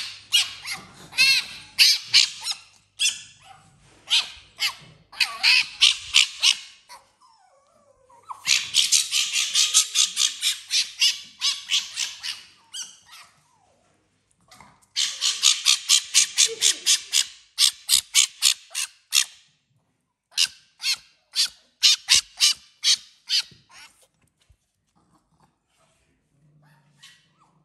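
A small animal's high-pitched chattering cries: rapid trains of sharp pulses, several a second, in repeated bouts of one to four seconds with short pauses between them, dying away in the last few seconds.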